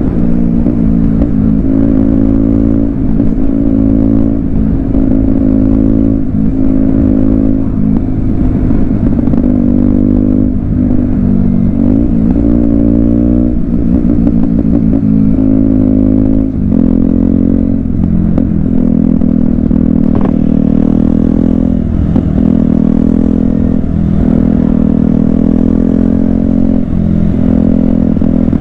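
KTM Duke 125's single-cylinder four-stroke engine running loud under way, its pitch climbing and dropping again and again as the bike revs up and settles.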